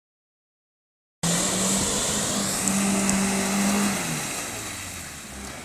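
Suzuki Jimny's 1.3-litre four-cylinder engine held at high revs as it pushes through a mud pool, starting about a second in. Near the end the revs ease off and the pitch falls as the vehicle climbs out of the mud.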